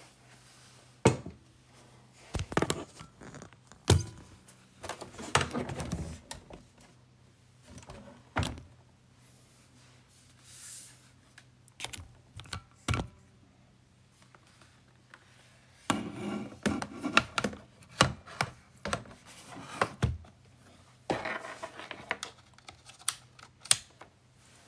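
Handling noise from a phone being picked up, carried and set up: scattered knocks, clunks and rubbing in two busy spells with a quieter stretch between them.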